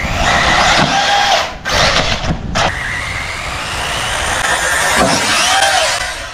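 Arrma Typhon 6S 1/8-scale RC buggy's brushless motor whining under throttle, its pitch rising as the car accelerates. The whine cuts out briefly twice as the throttle is let off, then climbs again, and near the end it rises and falls as the car launches off a jump.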